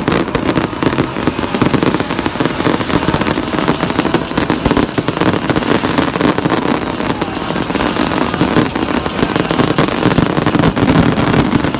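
Fireworks display going off in a loud, unbroken barrage of rapid bangs and crackles.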